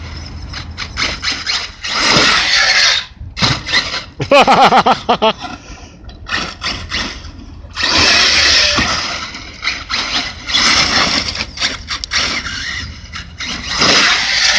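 Arrma Talion RC truck's brushless electric motor whining in repeated bursts of full throttle, its tyres spinning and scrabbling on loose gravel. A pitched whine rises and falls around four seconds in.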